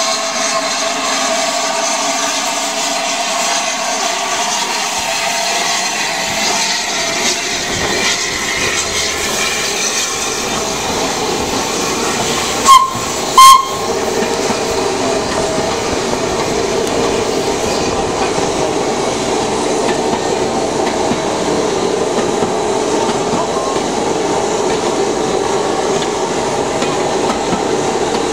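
Steam locomotive 60163 Tornado, an LNER A1 Pacific, and its coaches rolling slowly past at close range, with steam hissing and steel wheels running on the rails. Two short, very loud sharp sounds come about halfway through.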